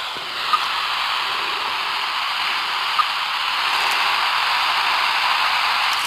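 Radio telemetry receiver hissing with static, with a short faint beep about every two and a half seconds: the pulse from the timber rattlesnake's radio transmitter.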